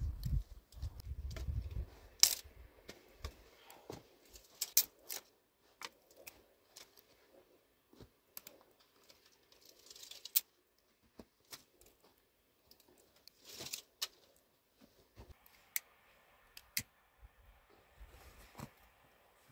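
Dry twigs and sticks clicking and snapping as they are handled and stacked into a fire lay, with a few short rustles. A brief low rumble at the start.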